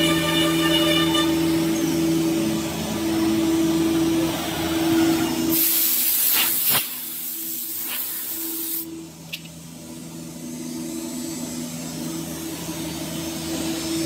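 A multi-head 5-axis CNC router running, its spindles giving a steady whine. A loud hiss cuts in from about six to nine seconds in, then the whine carries on.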